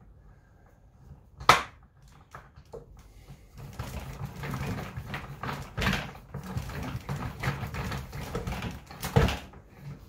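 Screwdriver driving a screw to fix a plastic castor wheel onto a plastic vacuum drum. A sharp click comes about one and a half seconds in, then several seconds of scraping, creaking turns, and a loud knock near the end.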